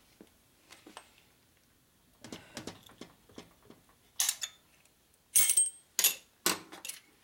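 Metal tools working on a shovelhead's pushrod tubes: faint small clicks and scrapes of a screwdriver levering the pushrod tube cover clips, then four sharp metal clanks from about four seconds in, one ringing briefly, as tools meet the tubes and the steel workbench.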